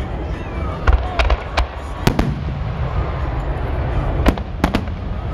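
Aerial fireworks shells bursting in a display: about nine sharp bangs in quick clusters, about a second in, about two seconds in and again near the end, over a steady low rumble.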